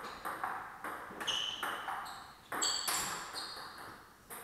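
Table tennis rally: the ball clicks back and forth off the paddles and the table in a quick, fairly even rhythm, about two to three hits a second. A few short high squeaks come in between the hits.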